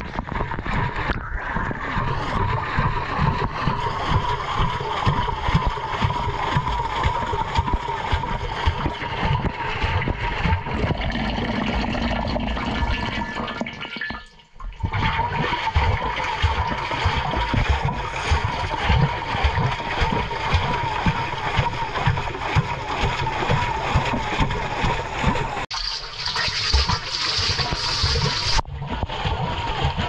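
Water sloshing and splashing in a washing machine drum as it tumbles soapy laundry, heard from inside the drum, with irregular low knocks and a steady whine. The sound breaks off briefly about halfway through.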